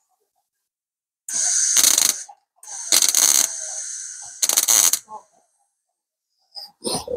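MIG welder laying three short bursts of weld on a sheet-steel repair patch, each a harsh crackling hiss that starts and stops abruptly. A shorter, lower sound follows near the end.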